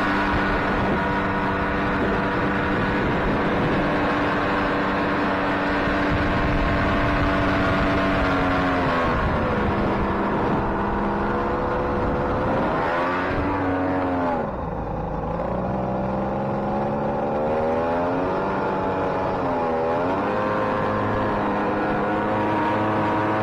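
Jet boat's engine running under way, with water rushing and spraying along the hull. The engine note dips and climbs back three times, about ten, fourteen and twenty seconds in; the second dip is the deepest.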